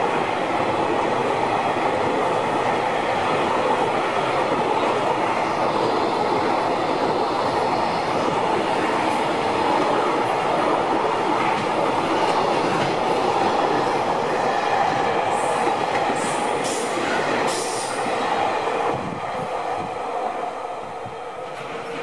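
Container wagons of a JR Freight train rolling past close by: a steady rumble and rattle of wheels on rail, with a few brief high squeaks in the second half. The noise fades as the last wagons move away near the end.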